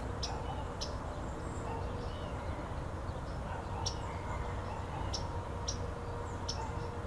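Small birds chirping, short sharp high notes at irregular intervals of about a second, over a steady low outdoor rumble.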